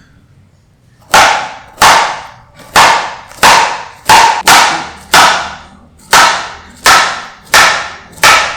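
About eleven hard, sharp strikes, unevenly spaced at one to two a second, starting about a second in, each ringing out briefly.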